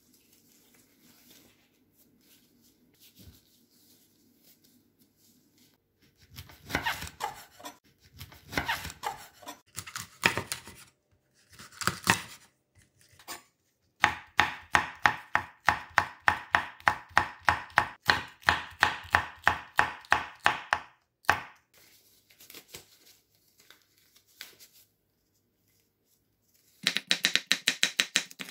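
Chef's knife slicing green chili peppers on a wooden cutting board: quick, even knocks of the blade through the pepper onto the board, about five a second, coming in runs with short pauses between them.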